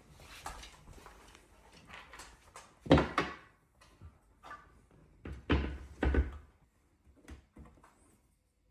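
A run of clunks and knocks from a TV wall mount's hardware being handled and fitted: a loud one about three seconds in, two close together about six seconds in, and lighter taps in between.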